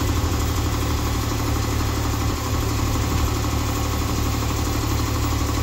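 Miniature railway locomotive's engine idling steadily, a constant low hum.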